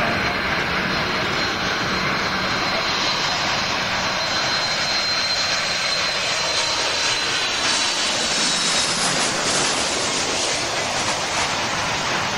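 Boeing 747's four jet engines passing low overhead on landing approach: a loud, steady rush with a high fan whine that fades out about seven seconds in. The noise is fullest around eight to ten seconds in, as the plane passes.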